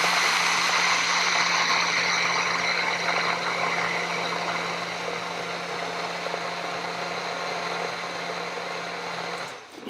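Blender running steadily at half speed, churning a liquid vinaigrette of oil, vinegar, avocado, lime juice and cilantro, with a steady motor hum under the whir of the liquid; it cuts off near the end.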